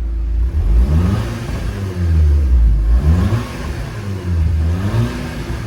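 Audi S3 8P's turbocharged 2.0 TFSI four-cylinder, fitted with an aftermarket downpipe and a performance tune, revved repeatedly: the engine note rises and falls back about three times over a steady running base.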